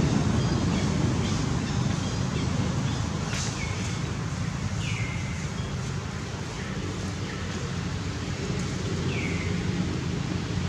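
Steady outdoor ambience with a low rumble and hiss, and four short calls, each falling in pitch, spaced a few seconds apart. A single brief click sounds about three seconds in.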